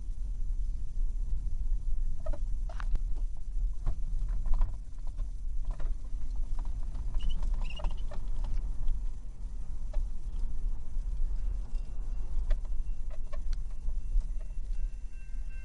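Low, steady road and engine rumble heard from inside a moving car, with scattered light clicks and taps. Faint steady high tones come in near the end.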